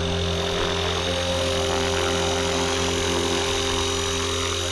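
Blade Fusion 360 Smart electric RC helicopter's brushless motor, main rotor and tail rotor running at a steady head speed as it comes in to land: a steady hum with a higher whine, holding one pitch.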